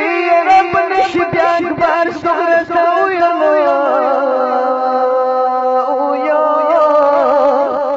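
A man chanting a Pashto nauha, a Shia lament, in long wavering sustained notes whose pitch steps down about halfway through.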